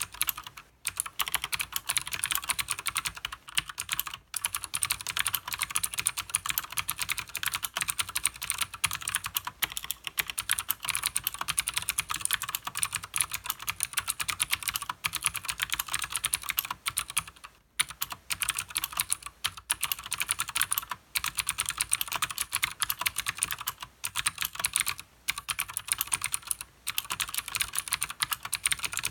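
Fast, continuous typing on a Leopold FC900R full-size mechanical keyboard with stock Cherry MX Blue clicky switches and PBT keycaps. The keystrokes come densely, with a few brief pauses, for example just under a second in and around the middle.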